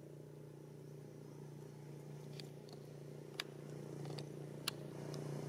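A motor vehicle's engine running steadily and growing louder as it comes closer, with two sharp clicks in the second half and a few faint high chirps.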